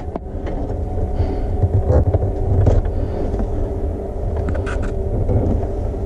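A steady mechanical hum over a low rumble, with a few short clicks as hands work among the wiring.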